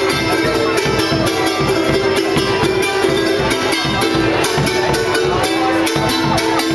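Live Andean folk music: a charango strummed rapidly, with a bombo legüero drum beating along and one steady held note sounding over them.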